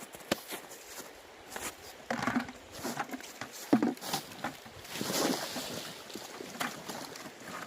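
Irregular sharp clicks and knocks mixed with short crunching and splashing bursts, from ice and shallow water being worked at the river's edge.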